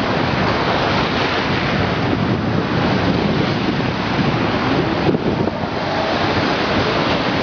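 Sea water rushing and splashing as an inflatable towable tube is pulled fast over the waves, under heavy wind noise on the microphone.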